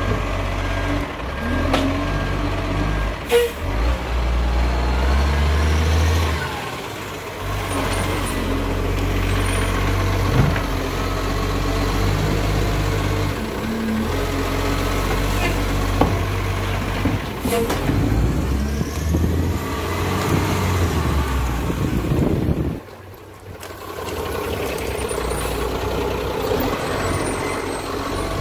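Side-loader garbage truck's diesel engine running with the distinctive chugging of its automated arm lifting and emptying a wheelie bin, with several sharp clanks from the arm and bin and air-brake hisses.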